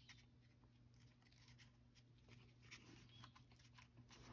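Near silence: faint scattered ticks and rustles of small cardstock pieces being handled and pressed into place, over a low steady hum.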